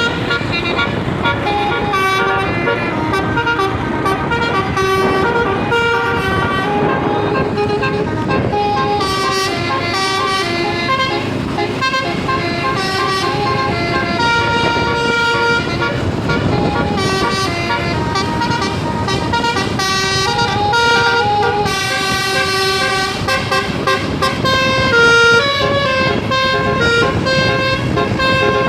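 Indonesian bus 'basuri' telolet horn, a 12-note set of roof-mounted air-horn trumpets, playing a quick melody of short changing notes over the noise of the bus and traffic.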